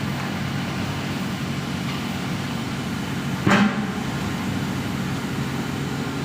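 Steady low machine hum. A brief louder burst comes about three and a half seconds in.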